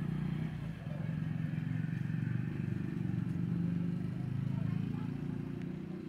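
A motor vehicle engine running steadily, a low pulsing engine sound.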